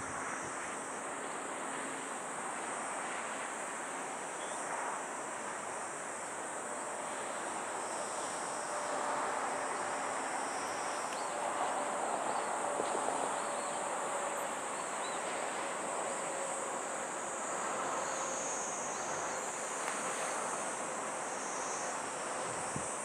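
Wind on the microphone and a steady high chirring of insects, with the faint distant engine tone of a jet airliner slowly falling in pitch through the middle.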